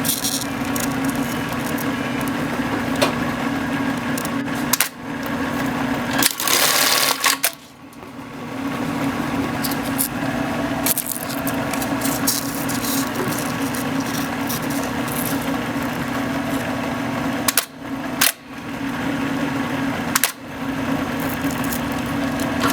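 Industrial bartack sewing machine running as it sews tacks, with a steady mechanical running sound. It stops briefly several times between cycles, and a loud short burst of noise comes about seven seconds in.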